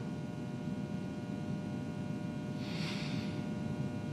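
Quiet room tone with a low steady hum, and a short soft hiss, like a breath, about three seconds in.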